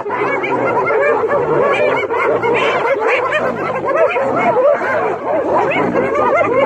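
A clan of spotted hyenas giggling and whooping, many overlapping calls that rise and fall in pitch. It is the excited laughing chorus hyenas make when mobbing a lion.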